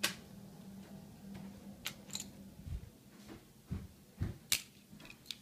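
Faint handling noise as the camera is moved about: scattered sharp clicks and a few short low thumps, over a faint steady hum that stops about halfway through.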